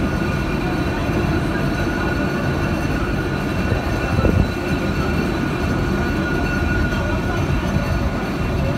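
A railroad turntable turning slowly under a small diesel locomotive and a passenger car: a steady low mechanical rumble with faint high whining tones. A brief louder bump comes about four seconds in.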